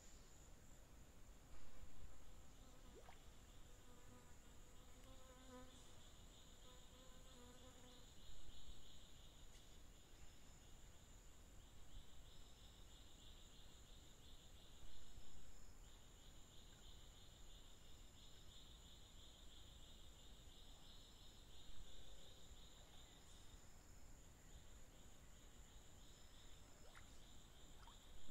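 Faint insect chorus: a steady high-pitched buzz over a constant higher whine, the buzz stopping briefly a few times and starting again.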